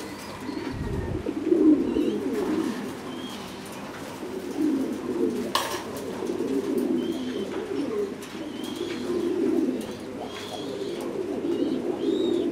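Many caged Thai Titan meat pigeons cooing together without a break, with a single sharp click about halfway through.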